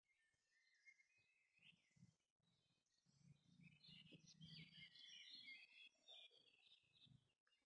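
Faint birds chirping, busiest around the middle, over a faint low hum.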